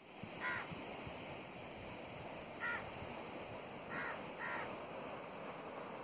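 A crow cawing four times, short separate calls with the last two in quick succession, over a steady background hiss.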